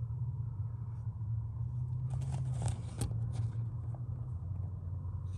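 Short plastic clicks and scrapes of the fuse box lid being pushed and fitted shut over a circuit tap, in a cluster about two to three and a half seconds in, over a steady low hum.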